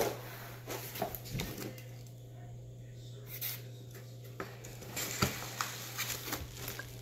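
Cardboard rifle box and its foam and bubble-wrap packing being handled: scattered light knocks, scrapes and rustles, quieter for a moment about two seconds in and busier near the end, over a steady low hum.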